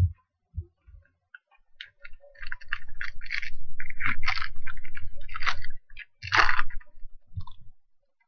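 Foil wrapper of a 2020 Topps Tribute trading-card pack being torn open and crinkled by hand: a run of crackling rustles that starts about two seconds in and stops shortly before the end.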